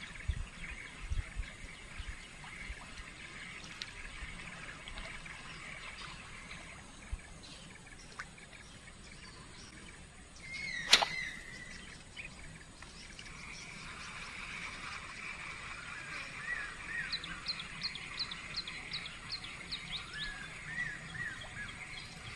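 Wild birds calling over a steady outdoor background hiss, with a run of short, quick, falling chirps in the second half. One sharp swish or click stands out about halfway through.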